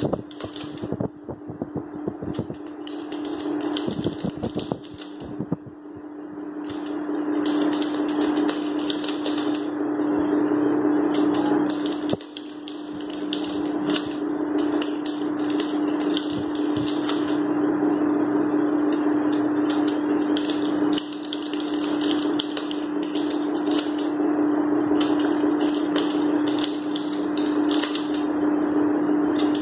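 Plastic abacus beads clicking in quick runs as fingers flick them, with a pencil working on paper, in bursts of a few seconds with short pauses. A steady electric fan hum runs underneath.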